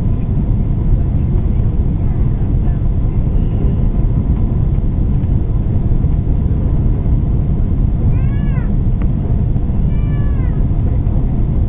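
Steady rumble of engine and airflow noise inside an Airbus A330-300 airliner's cabin during landing. About eight and ten seconds in, two short cries rise and fall in pitch above it.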